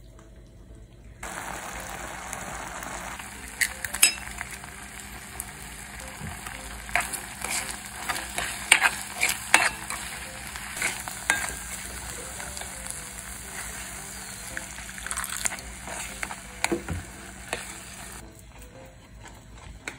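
Rice and egg porridge sizzling in a pot on a portable gas burner while a silicone spatula stirs it, scraping and knocking against the pot with sharp clicks. The sizzle starts about a second in and stops shortly before the end.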